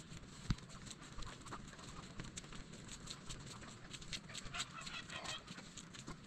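A child's footsteps in sandals on muddy ground and the rustle of a sack of straw being dragged and carried, with many small ticks and scuffs, a sharp knock about half a second in, and a brief high chirping about five seconds in.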